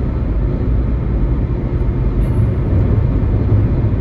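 Steady road and tyre rumble heard from inside a Toyota Prius cruising on the highway, deepest at the low end and even throughout.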